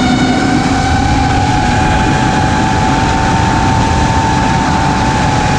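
A 5-inch FPV quadcopter's XING 2207 2450KV brushless motors and propellers whining steadily in flight, over a rush of wind noise on the onboard camera's microphone. The pitch rises a little in the middle and eases back near the end as the throttle changes.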